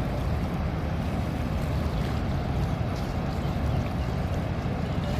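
Steady rushing of the Rhine Falls waterfall, a dense, even noise weighted to a low rumble.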